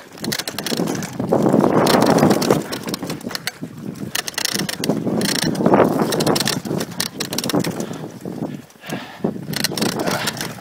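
Mountain bike descending a bumpy dirt trail at speed: tyres on dirt and the bike rattling over roots and bumps, in uneven swells of noise with many sharp clicks.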